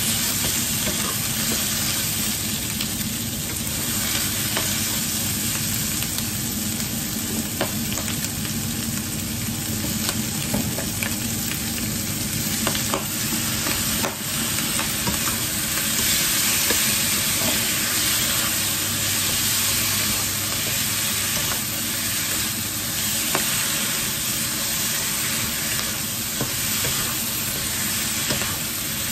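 Food sizzling in hot oil in a nonstick wok, with a wooden spatula scraping and tapping against the pan as stuffed tofu puffs and wood ear mushrooms are stir-fried. The sizzle dips briefly about halfway through as a sauce is poured in.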